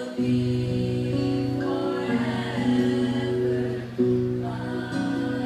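Show choir singing over instrumental backing music. The chords are held, with a fresh chord struck about four seconds in.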